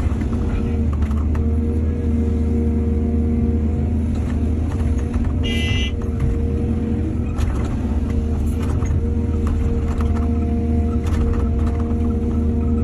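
Diesel excavator engine running steadily under load, with scattered clanks. A brief high-pitched tone sounds about halfway through.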